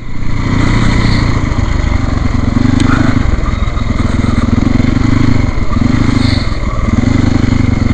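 Trail motorcycle engine running under throttle, loud and steady, the revs easing off briefly several times.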